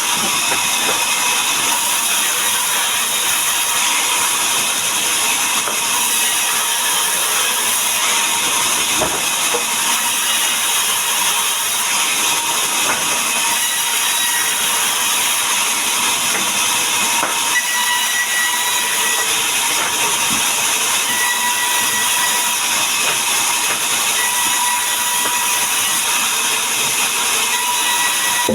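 Power saw running steadily through wood for board cutting, a loud, even, high hiss with a faint steady whine underneath.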